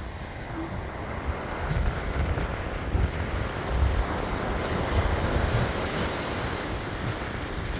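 Ocean surf washing onto the beach, swelling louder through the middle, with gusts of wind rumbling on the microphone.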